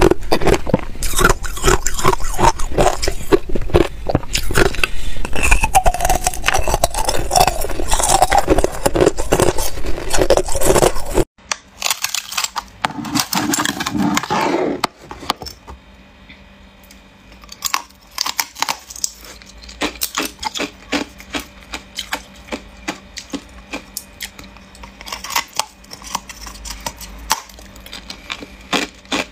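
Thin, hard ice being bitten and crunched in the mouth: a dense run of crisp cracks and crunches. It cuts off abruptly about eleven seconds in, giving way to quieter, scattered cracking and scraping as a block of ice is worked out of a plastic container and handled.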